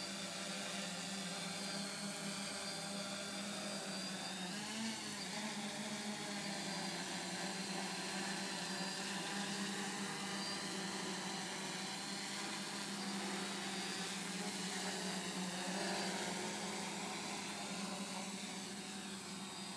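DJI F550 hexacopter's six electric motors and propellers whirring steadily as it hovers low, with a brief wobble in pitch about five seconds in.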